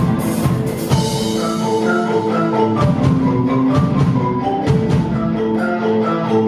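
Ensemble of Orff xylophones and metallophones playing a fast rock tune in quick struck notes over held low notes, with regular drum strikes. Something crashes and rings out about a second in.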